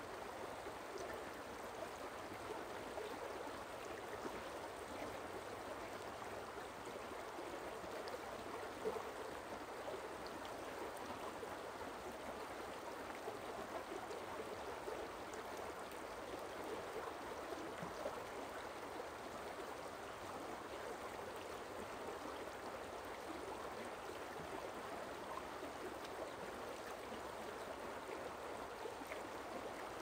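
Forest stream running steadily, a continuous rush of water.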